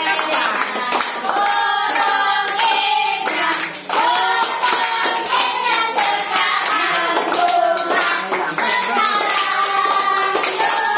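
A group singing a birthday song while clapping their hands along.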